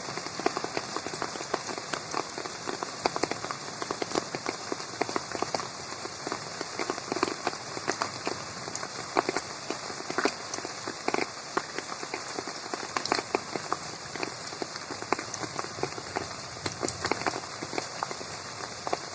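Rain falling on a garden pond: a steady patter of countless drops landing on the water, with the occasional louder, nearer drop.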